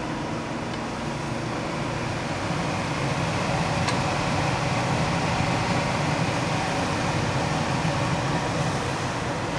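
Industrial parts washing machine running: a steady mechanical hum and rush of noise that grows a little louder a couple of seconds in, with a faint click about four seconds in.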